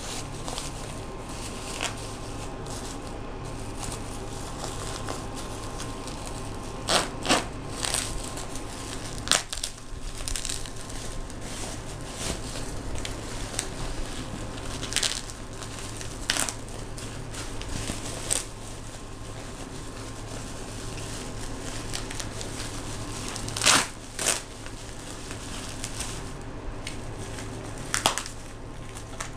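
Plastic mailing bag and bubble wrap being crinkled and pulled apart by hand: continuous rustling with sharp, louder crackles every few seconds.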